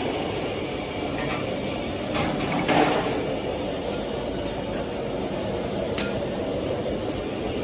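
Dishes and serving bowls clinking as food is plated and served. A few sharp clinks stand out over a steady background clatter.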